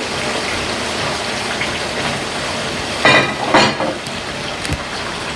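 Bone-in, skin-on chicken thighs frying skin-down in hot oil in an electric skillet, a steady sizzle, with a brief louder burst about three seconds in.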